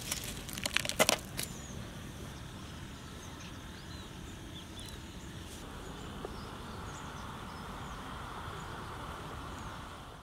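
Outdoor ambience: a steady low hiss with faint, short, high bird chirps, and a few sharp clicks in the first second and a half.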